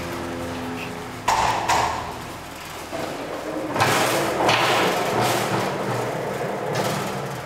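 A loaded cart rolling across the floor, with two knocks a little over a second in and then a stretch of rattling rolling noise, over a steady low hum that stops after the first second.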